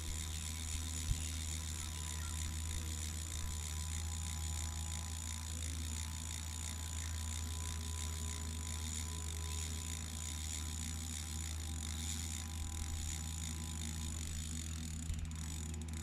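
Line paying out from a carp fishing reel in free-spool as a bait boat carries the rig out, a steady fast mechanical ticking over a low steady hum.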